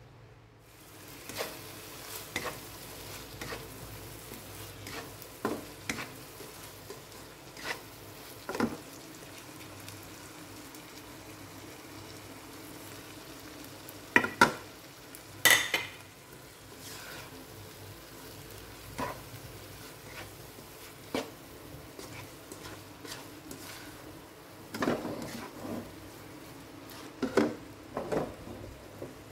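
Tomatoes, shallots and chili paste sizzling in a non-stick wok while a spatula stirs and scrapes through them. Sharp clacks of the spatula against the pan break in now and then, loudest about halfway through and again near the end.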